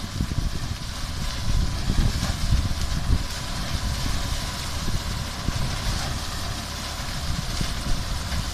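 Engine of a broomcorn cutting-and-binding machine running steadily, a low rumble with a faint steady whine.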